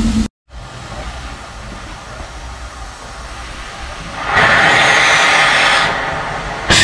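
Ffestiniog Railway Double Fairlie steam locomotive standing with a steady low rumble, then a loud high-pitched blast from the engine about four seconds in, lasting about a second and a half, and a second short blast near the end.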